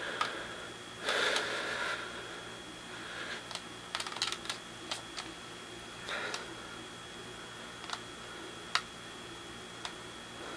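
Scattered light clicks and a couple of brief rustles, over a faint steady high-pitched whine.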